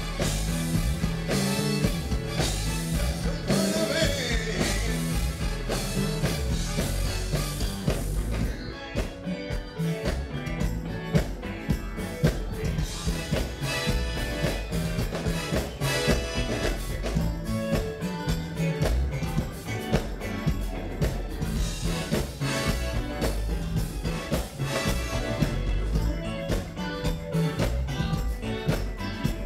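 Live funk band playing loudly: a repeating electric bass line under a drum kit and keyboards, as heard from the crowd in front of the stage.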